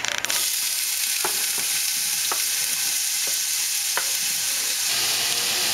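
Diced onions sizzling as they land in hot oil in a stainless steel pot, a steady hiss that starts just after they go in. A few light knocks as they are scraped off a wooden cutting board with a wooden spoon.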